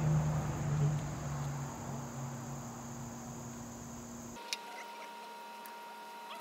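Backyard ambience: a steady high insect drone over a low hum, both cutting off abruptly about four seconds in, leaving faint short chirps and a small click.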